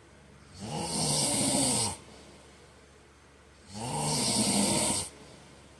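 A man snoring in his sleep: two snores, each about a second and a half long, about three seconds apart, with quiet between them. Each snore is a low pitched rattle with breathy hiss that rises and then falls in pitch.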